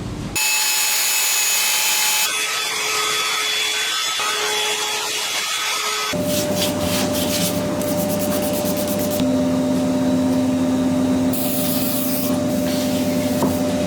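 Wood lathe running, with a tool or abrasive rubbing and cutting against the spinning wood and the motor's steady hum underneath. The sound changes abruptly several times, as one clip gives way to the next.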